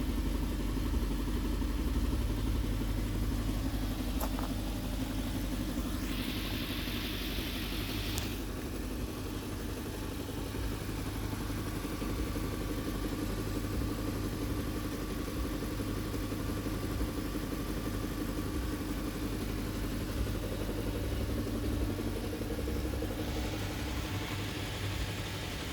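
Audi Q7's 4.2 FSI V8 engine idling steadily, recorded to find where a noise or knock is coming from. A hiss comes in for about two seconds around six seconds in, and again near the end.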